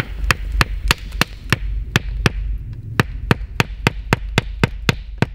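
A steady series of sharp taps or clicks, about three a second, over a low rumble.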